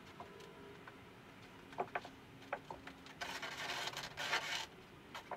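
Hands working the top edge of a glued foam trailer sidewall to bring it flush with the roof: a few light knocks, then about a second and a half of scraping and rubbing against the panel edge.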